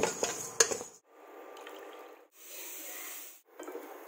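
A steel ladle scrapes and clinks against a steel pot as it stirs dry moong dal for roasting. After about a second this cuts to the steady sizzle of frying in ghee, in short sections that stop and start abruptly.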